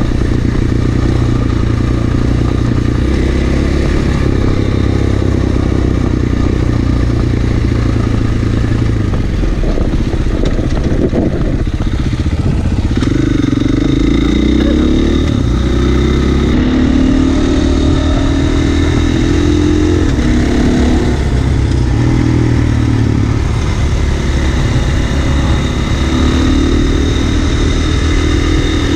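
Motorcycle engine running under way, steady for the first several seconds, then rising and falling in pitch again and again as the throttle is worked.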